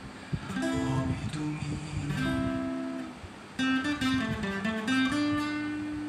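Acoustic guitar played solo, strummed and picked chords ringing out, with a louder strum about three and a half seconds in.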